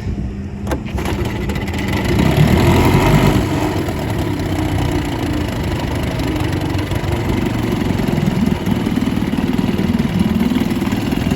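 1950 Corsair 7.5 hp two-stroke outboard motor running. About two seconds in it revs up, then settles into a steady run.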